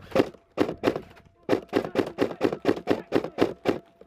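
A quick, uneven run of about fifteen dull knocks, some four to five a second.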